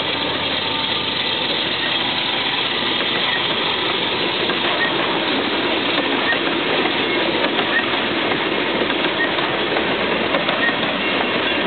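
Loaded sulfur hopper cars of a long freight train rolling past, a steady rumbling hiss of steel wheels on rail. A faint high tick recurs about every second and a half.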